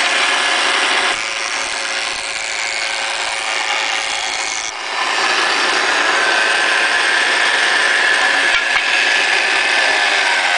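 Vintage Delta jointer-planer running, its belt-driven cutter head planing a board. The sound is a steady whine with a hum underneath; it drops in level about a second in and comes back up a little before the middle.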